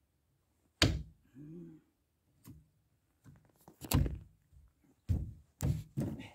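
Sharp metal knocks and clunks from a car's front disc brake caliper assembly being handled and fitted, a handful of separate hits spread over several seconds, the first the loudest.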